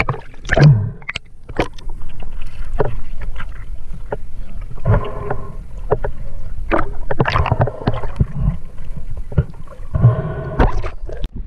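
Water sloshing and splashing around a diver's camera as it moves through the surface and under the water, heard muffled with a constant low rumble and scattered sharp knocks.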